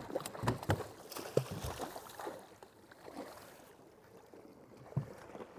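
Water splashing against a kayak hull as a hooked mahi-mahi thrashes at the surface alongside. There are several sharp knocks and splashes in the first two seconds, a quieter sloshing after that, and one more knock near the end.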